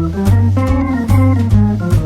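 Background music: an organ-led instrumental with a bass line and a steady beat.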